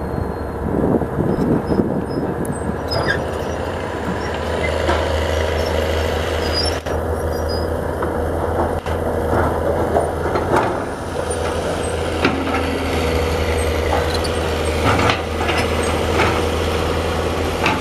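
Diesel engines of a Hyundai crawler excavator and a small dump truck running steadily, with scattered knocks and clatter from the bucket and soil. Near the end the loaded dump truck drives off over soft, dug-up ground.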